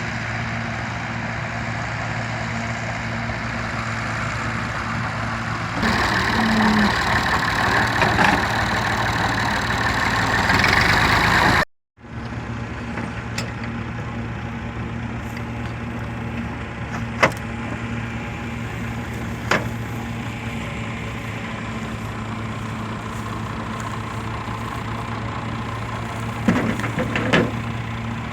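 Massey Ferguson 385 tractor's diesel engine running steadily while powering a wheat straw chopper blower. A louder, rushing stretch lasts several seconds before the sound breaks off for a moment. After that the engine runs on with a few sharp knocks.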